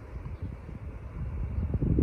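Wind buffeting the microphone in irregular gusts, over the low rumble of a distant Boeing 777-300ER's twin GE90 engines at takeoff thrust. The sound grows louder toward the end.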